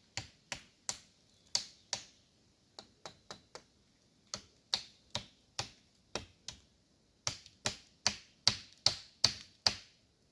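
A run of about two dozen sharp knocks at an uneven pace, some in quick pairs, the loudest in a fast burst near the end.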